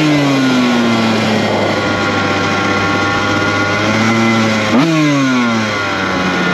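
Dirt bike engine cruising at low speed: the revs fall away off the throttle, hold steady for a few seconds, then jump sharply with a quick throttle blip a little under five seconds in and drop back down.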